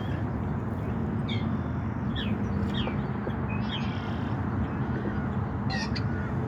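Wild birds calling: several short, high chirps, each falling in pitch, spaced irregularly about a second apart, over a steady low background rumble.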